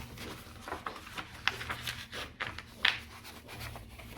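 Large paper poster being handled and opened out, rustling and crinkling in a string of short scratchy sounds, with two sharper crackles about a second and a half in and near three seconds.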